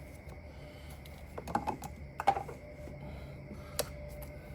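A few light clicks and knocks of hand tools and parts being fitted during reassembly of a car's engine bay, over a low steady hum.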